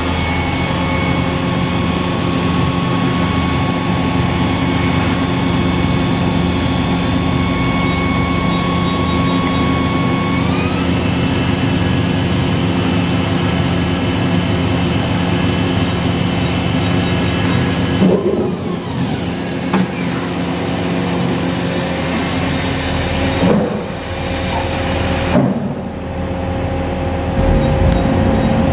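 Okuma MA60HB machining center spindle running at high speed with a steady whine, stepping up in speed about ten seconds in as it is run up to 6000 rpm. About eighteen seconds in the whine falls away as the spindle winds down, followed by a few knocks.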